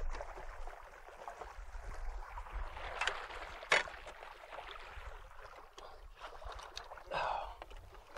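Water splashing and churning as a big hooked flathead catfish thrashes at the surface beside the boat near the end of the fight, with two sharp knocks about three seconds in and a louder splash near the end.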